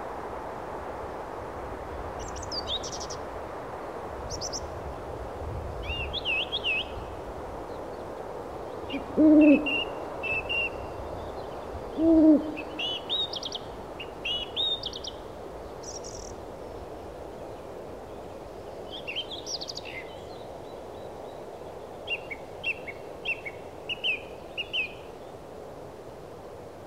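An owl hooting twice, two short low hoots about three seconds apart, over small birds chirping on and off and a steady background hiss.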